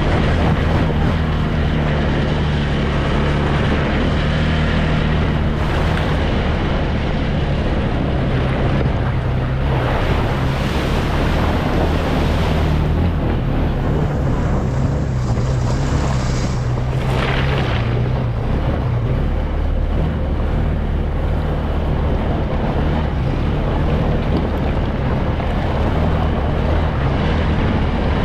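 ATV engine running steadily while riding, under a heavy rushing noise of wind on the microphone. The rushing swells for a couple of seconds around ten seconds in, with a short louder burst near seventeen seconds.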